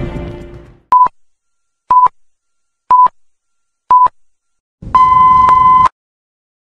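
Film-leader countdown sound effect: four short beeps of one steady tone, about a second apart, then a longer final beep lasting about a second. Music fades out just before the first beep.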